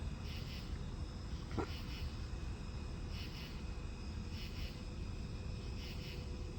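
Insects chirping in short high pulses, roughly one every second and a half, over a steady low rumble.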